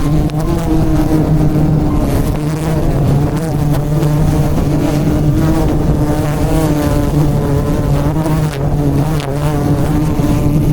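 Swarm of wild bees buzzing loudly close by, a dense steady drone with a wavering hum.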